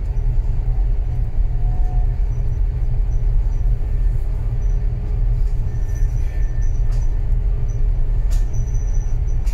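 Steady low rumble of a container ship under way as it undocks from the pier, with a faint constant hum over it.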